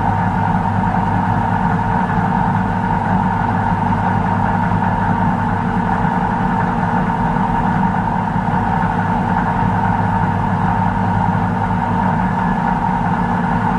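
Microwave oven running: a steady electrical hum with a fan-like whir.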